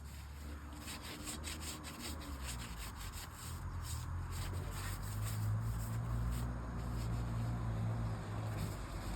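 A low steady machine hum, stronger from about three seconds in, with irregular clicks and rubbing noises over it.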